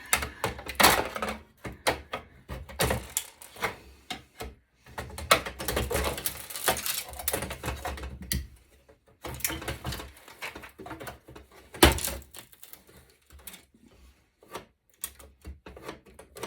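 Hand tools working on a metal server chassis and circuit board: irregular clicks, knocks and scraping as the board and its metal plate are pried at and unscrewed. The two loudest sharp clanks come about a second in and near twelve seconds.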